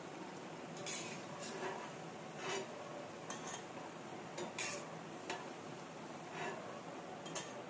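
Steel spoons clinking lightly against a steel bowl and frying pan, about once a second, as fried jalebis are lifted from the oil with a slotted spoon and pressed into sugar syrup. Under it, hot oil sizzles faintly and steadily.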